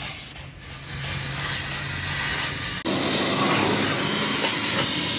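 Gas cutting torch hissing steadily on sheet steel, louder from about three seconds in.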